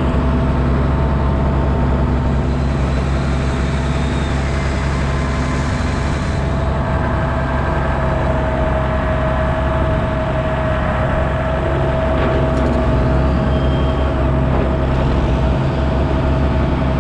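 Diesel tractor engine running steadily under a steady whine while a loader brings in a scoop of grass silage for the cows' feed mix.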